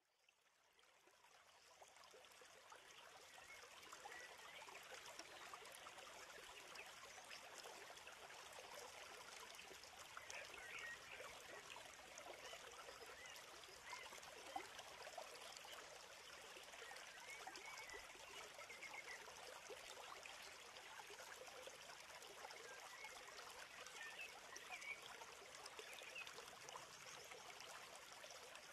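Faint, steady rushing of flowing water, like a stream, fading in over the first few seconds.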